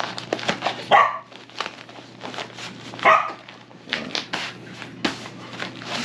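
A small dog barks twice, once about a second in and again about three seconds in, over the rustling of a nylon insulated cooler bag being handled.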